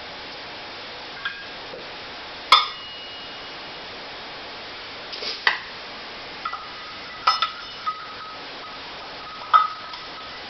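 Kitchen dishes and utensils clinking: about seven sharp clinks with a short ring, spread irregularly, the loudest about two and a half seconds in.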